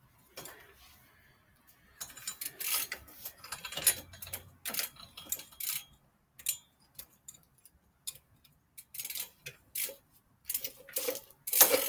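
Irregular metallic clicks and rattles of a bicycle chain and drivetrain parts being handled while the chain is fitted. Near the end a steady ratcheting whirr starts as the wheel or cranks are spun.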